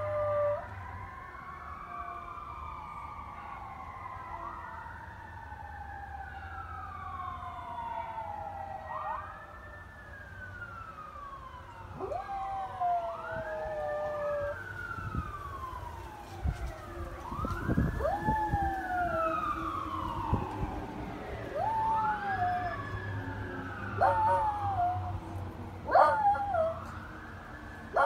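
Fire truck sirens wailing, several at once, rising and falling and overlapping. A small dog howls along with them in long wavering howls, which come more often in the second half.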